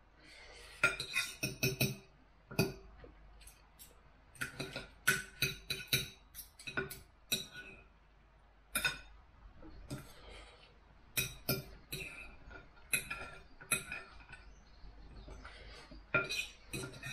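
Knife and fork clinking on a dinner plate as a meal of sausage and rice is cut and eaten: irregular sharp clicks, some in quick clusters.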